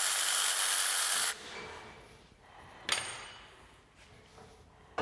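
Hand ratchet and socket loosening a bolt on a bare diesel engine block: a steady rasping for about a second and a half, then one sharp click about three seconds in.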